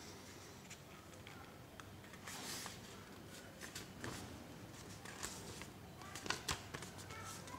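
Sheets of paper being handled and folded by hand: soft rustling, with a louder rustle about two and a half seconds in and sharp crinkles and taps a little after six seconds in.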